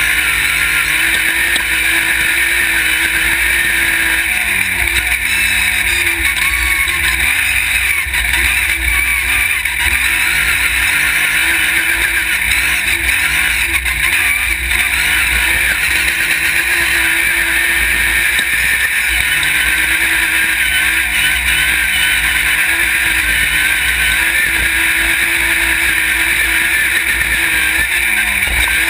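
Off-road race buggy's engine running hard at speed, heard close from a camera mounted on the buggy. Its pitch rises and falls several times as it accelerates and backs off.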